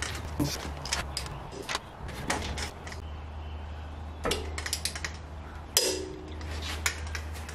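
A long click-type torque wrench tightening the cylinder head stud nuts of a 7.3 IDI diesel to 95 ft-lb. Its ratchet clicks quickly on the back strokes, then gives two single sharp clicks, one about four seconds in and one near six seconds, as it breaks over at the set torque. A steady low hum runs underneath.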